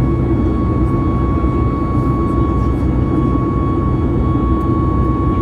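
Cabin noise of a Boeing 737 MAX 8 in flight, heard beside its CFM LEAP-1B turbofan engine: a steady low drone with a steady high-pitched tone on top.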